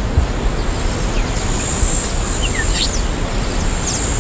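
Steady outdoor field ambience: an even rushing noise, with a few short bird chirps that glide down or up in pitch, about midway and again near the end.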